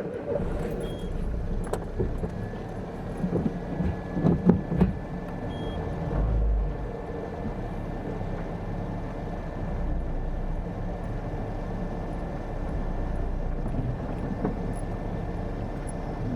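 Car engine starting and running steadily, heard from inside the cabin, with a few knocks about three to five seconds in.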